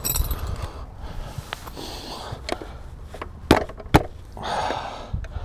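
Hands working the seat and seat post of an E100 Eagle electric scooter, giving scattered clicks and knocks, two of them sharp and loud about three and a half and four seconds in.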